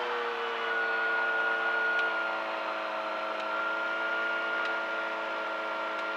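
Light aircraft's piston engine running steadily at reduced RPM after being throttled back from cruise, during a check of its dual ignition systems, which hold solid RPM. Its pitch settles slightly lower early on and then holds steady, with a few faint clicks.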